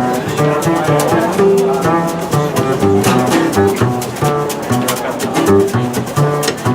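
Small jazz band playing an instrumental passage: upright bass walking step by step under a guitar and melody, over a steady beat.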